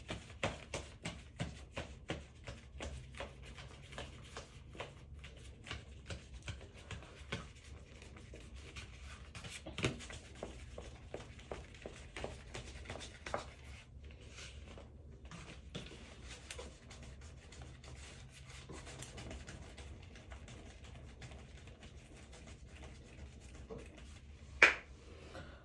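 Hands rubbing and handling small objects close to the microphone: soft rubbing and scraping with many small clicks and taps, and one sharp, louder click near the end.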